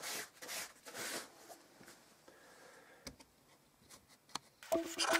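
A cloth rubbing wax into a jacket's fabric in a few quick scratchy strokes, then quiet with a couple of faint clicks. Music with a regular beat starts near the end.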